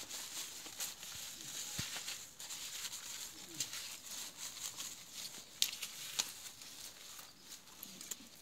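Faint wet rubbing of hands lathering a puppy's soapy fur, with a few scattered clicks of handling.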